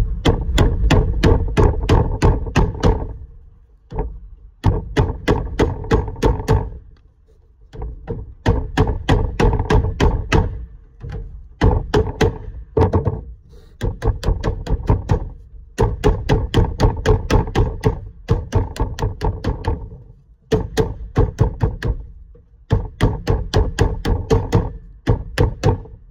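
Mallet striking a setting-in stick to set a crease into sheet lead: rapid, even knocks, several a second, in runs of two to three seconds with short pauses between.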